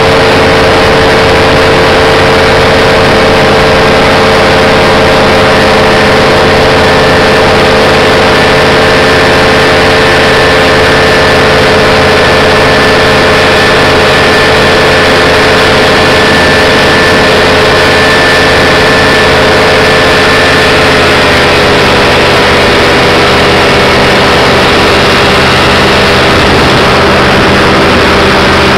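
Engine and propeller of a small aircraft running steadily in flight, loud and close. Its pitch drops slightly about two-thirds of the way through.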